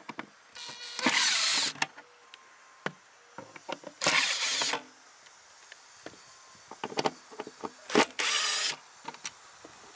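Power drill run in three short bursts of under a second each, about three to four seconds apart, with light clicks and knocks between.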